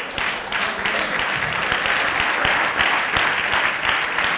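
Church congregation applauding steadily, many hands clapping at once.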